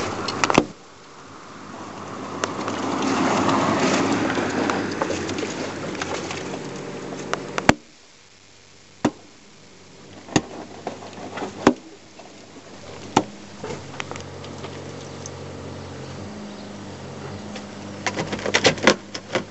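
An engine running steadily on the work site. Over the first several seconds a rushing noise swells and fades, ending in a sharp click; after that, scattered sharp knocks sound over the engine.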